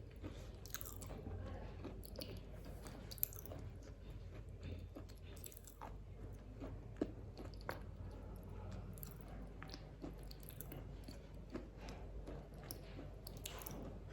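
Chewing and crunching of a black KitKat chocolate wafer bar: irregular crisp crackles throughout, with two sharper snaps about three and seven seconds in.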